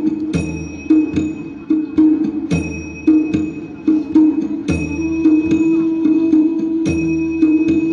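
Flute playing a low, sustained melody over a slow drum pattern on a Korean barrel drum. A heavy stroke comes about every two seconds, with lighter strokes in between.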